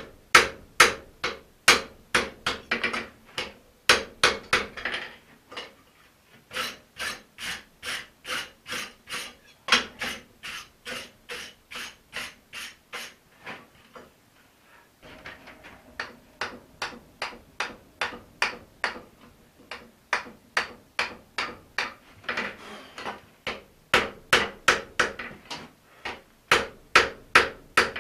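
Blacksmith's hand hammer striking a red-hot steel axe head on an anvil, forging it to final shape: a steady run of sharp blows, about three a second, with a brief pause about halfway through.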